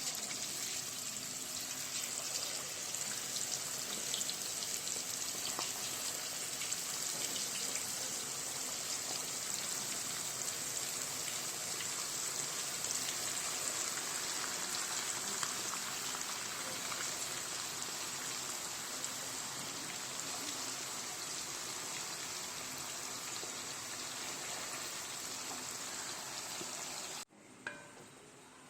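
Masala-coated chicken pieces frying in hot oil in a pan, a steady dense sizzle with fine crackling that cuts off suddenly near the end.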